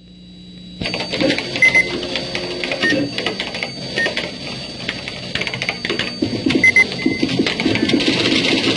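Keyboard typing sound effect: a quick, uneven run of keystroke clicks that starts about a second in and goes on, timed to text being typed out letter by letter.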